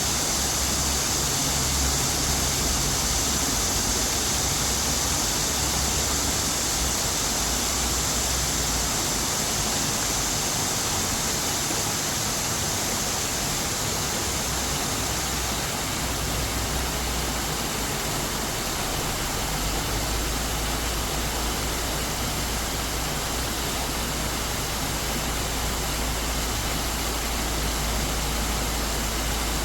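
Waterfall in a mountain valley stream rushing steadily, a continuous hiss of falling water with a deep low rumble beneath that grows steadier about two-thirds of the way through.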